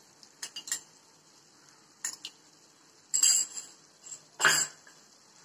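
Kitchen utensils and containers clinking and clattering against a frying pan: a few light clinks, then two louder clatters about three and four and a half seconds in.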